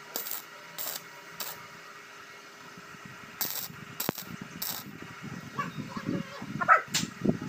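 Stick arc welder laying short tack welds on a steel bracket on the buggy's tubular frame: three brief bursts about half a second apart, then three more a couple of seconds later. A sharp knock near the end.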